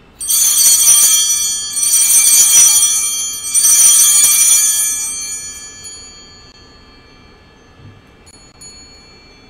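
Altar bell rung three times at the elevation of the chalice, each ring a cluster of bright, high tones that slowly dies away.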